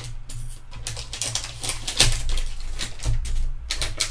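Packing paper crinkling and rustling as it is pulled open with long metal forceps: a quick run of crackles, loudest about two seconds in.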